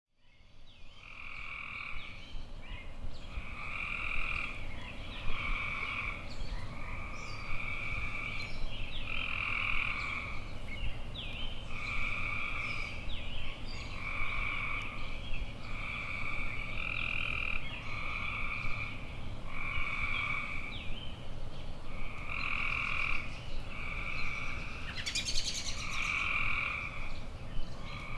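A chorus of animal calls, most likely frogs: calls about a second long, each held at one pitch, follow one another roughly once a second without letup. Faint short chirps sit above them, and a brief rising sound comes near the end.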